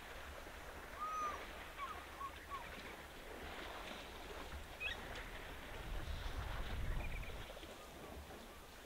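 Several short bird calls over a steady background hiss, with a low rumble swelling about six to seven seconds in.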